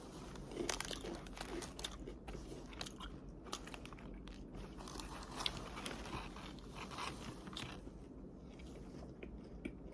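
Close-up chewing of a garlic-flavoured potato chip: many small, crisp crunches in an irregular run.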